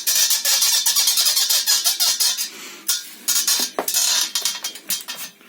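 Bent steel tube frame creaking and squeaking in fast rasping runs as it is flexed, easing briefly midway. The creak comes from the inner wall of the tube rubbing against the outer wall at the bends.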